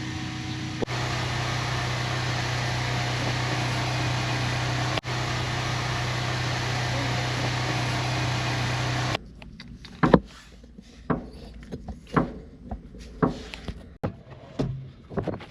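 A machine running steadily with a low hum and a loud hiss, cutting off abruptly about nine seconds in; then a series of irregular sharp knocks and scrapes, about eight in the last five seconds.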